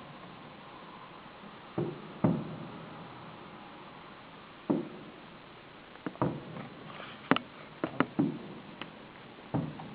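Fireworks exploding: a series of irregular bangs, each with a short echoing tail, coming thicker about six to eight seconds in.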